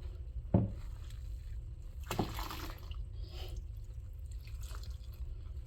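Bathwater in a tub splashing and dripping, with a few short sloshes over a steady low hum. There is one sharp knock about half a second in.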